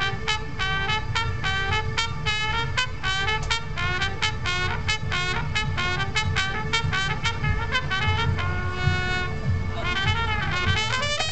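Marching band brass playing a fast figure of short repeated notes, about four a second, then moving to longer held notes about eight seconds in.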